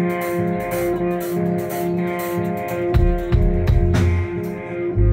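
Live rock band playing through amplifiers: electric guitars hold ringing, sustained notes over a repeating pulse with light cymbal ticks, then bass guitar and drums come in heavily about three seconds in.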